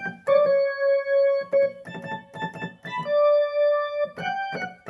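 Korg N364 keyboard played live: two long held notes of about a second each ring over short, rhythmic lower notes, the Big Organ patch laid in the background of the part.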